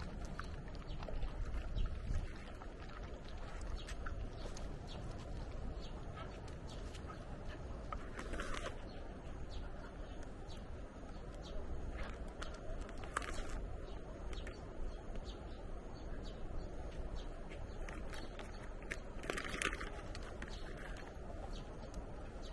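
Dogs chewing jerky and sniffing at the concrete, heard as faint scattered clicks and snuffles over a low steady rumble. Three short, brighter sounds stand out, about 8, 13 and 19 seconds in.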